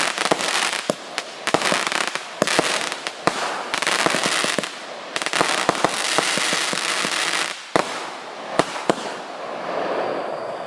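A 48-shot firework barrage cake firing: rapid bangs one after another over a dense hiss and crackle. The shots thin out to a few spaced bangs in the last few seconds, and the hiss fades as the cake finishes.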